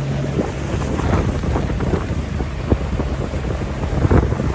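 Small boat under way: its motor hums steadily at first, fading out under a second in, while wind buffets the microphone and water splashes with many short knocks and slaps.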